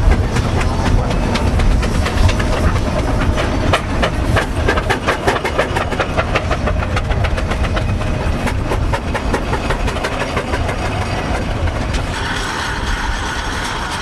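Two steam traction engines working in tandem under a heavy load, their exhausts chuffing in a quick, even beat that fades toward the end.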